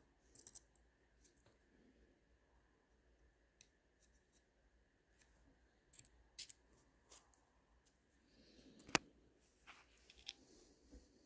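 Sparse, faint clicks and taps of small hand tools on a Miyota 8215 watch movement being assembled, the loudest about nine seconds in.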